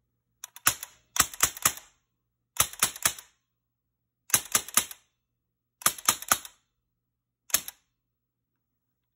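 Sharp clicks from the mechanism of a Big Bang Airguns M4 CO2 rifle being worked by hand, in quick bunches of three or four clicks repeated six times, the last bunch shorter.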